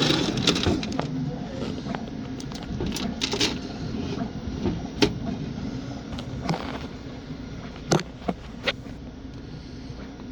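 Scattered sharp plastic clicks and knocks from a 3D printer being handled and operated, over a steady low background hum. Three quick clicks come close together about eight seconds in.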